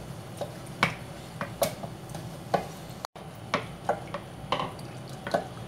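Wooden dal masher (ghotni) churning and mashing cooked red lentils in an aluminium pressure-cooker pot, with irregular knocks of the wood against the pot, about one every half second. The sound drops out briefly about three seconds in.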